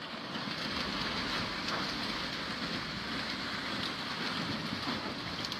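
Floodwater rushing, a steady unbroken noise.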